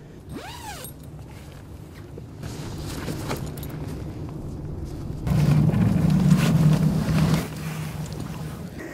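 Rustling and movement noise of anglers moving about on the bank and handling gear over a steady low hum, with a short rising-and-falling tone near the start and a louder stretch of rustling and handling noise about halfway through.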